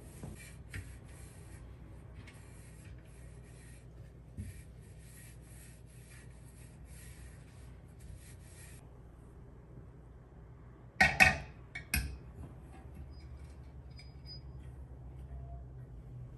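Cloth wiping a glass tabletop in quick rubbing strokes for about nine seconds. A little later there are two loud clinks a second apart as a metal candelabra with glass candle cups is set down on the glass.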